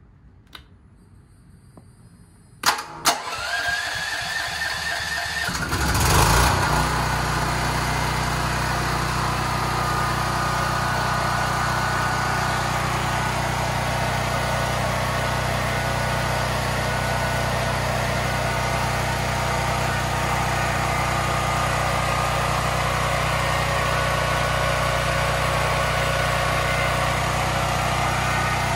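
Champion 9200-watt portable generator's single-cylinder engine, fed propane through a tri-fuel conversion, starting: two clicks about three seconds in, a couple of seconds of cranking, then it catches about six seconds in and settles into a steady run.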